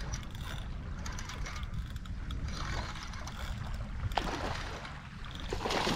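Steady low rumble of wind and water at the shoreline, with scattered faint clicks and two brief louder rushes of noise, about four seconds in and near the end.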